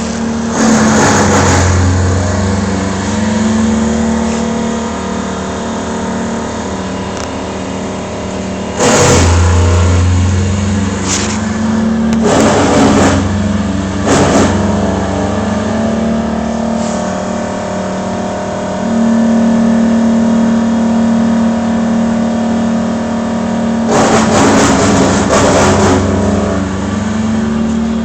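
An engine running steadily at a held pitch, with several short bursts of loud, rough noise breaking in.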